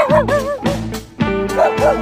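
A dog whining in quick rising-and-falling calls, about four a second. One run comes at the start and another begins in the second half. It sounds over background music with a steady beat.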